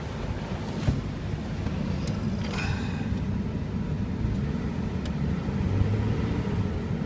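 2003 Chevrolet Trailblazer's 4.2-litre inline-six idling steadily and smoothly.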